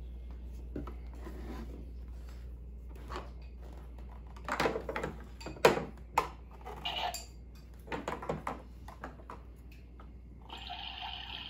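Light plastic clicks and knocks of a toy kitchen set being handled: a toy coffee maker, cups and pieces being set down. About a second before the end the toy coffee maker's small pump starts running steadily, dispensing water.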